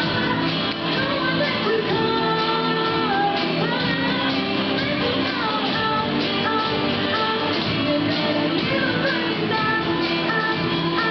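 Live school band performing a pop song: a female lead singer over electric guitar and a drum kit keeping a steady beat.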